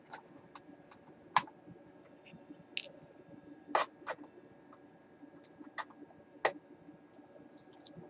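Small screwdriver clicking and scraping against the screws of a PowerBook G4's metal bottom case as they are undone: about eight scattered sharp clicks, the loudest about a second and a half in.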